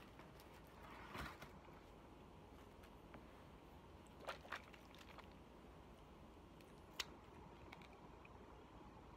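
Near silence with a few faint handling noises: a brief rustle about a second in, two small clicks at about four seconds, and one sharp click near seven seconds.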